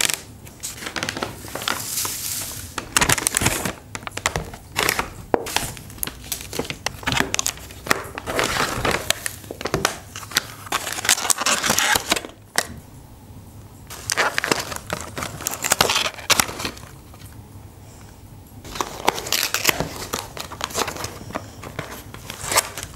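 Takeout packaging being unpacked: a paper bag rustling, foil lids crinkling as they are peeled off aluminium trays, and kraft paper noodle boxes being unfolded. It comes in bursts with short quieter pauses.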